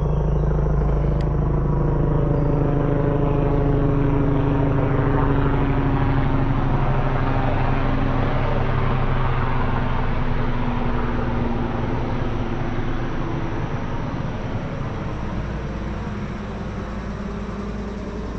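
A motor vehicle's engine droning steadily with a low rumble. It slowly fades and drops a little in pitch, as if moving away.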